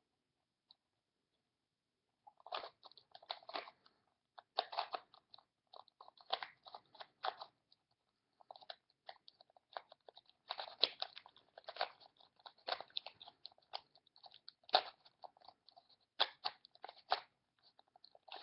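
Plastic Rubik's Cube faces being turned in quick runs of moves, a clicking, rattling sound in bursts with short pauses between them. Nearly silent for the first two seconds or so before the turning starts.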